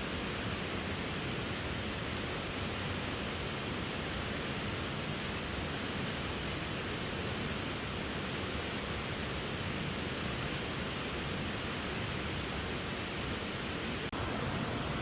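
Steady rushing of a waterfall, an even hiss of falling water with no let-up. It drops out for an instant near the end and comes back slightly brighter.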